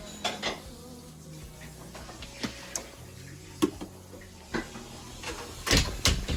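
Scattered light clicks and knocks, about a dozen, of things being handled and set down, the loudest few near the end, over soft background music.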